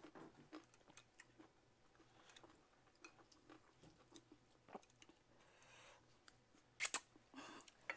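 Quiet eating sounds, chewing and small mouth clicks, with scattered light clicks of chopsticks against the food and a louder pair of sharp clicks near the end.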